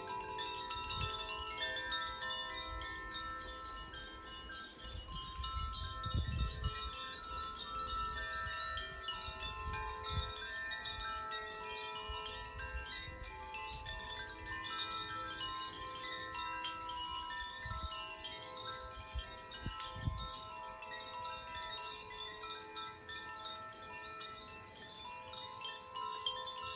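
Hand-played tuned wind chimes (Koshi and Irohana chimes) ringing continuously, many overlapping clear tones sounding together and decaying into one another, with a few low rumbles now and then.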